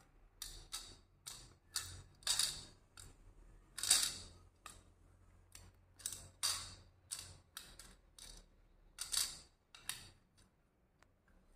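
Light irregular clicks and taps from a toddler's drop-game puzzle toy: a magnetic wand picking up small iron-bearing beads and dropping them against the toy's clear plastic dome and holes. About two clicks a second, with a few louder ones.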